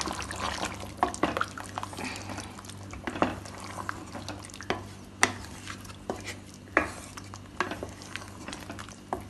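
A spoon stirring thick chicken curry in a pot, with irregular clinks and scrapes of the spoon against the pot.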